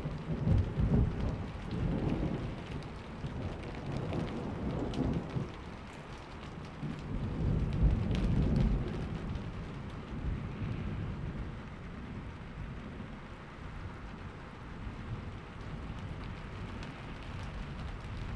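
Steady rain with rolling thunder. Deep rumbles come about a second in and again around eight seconds in, then it settles to quieter steady rain.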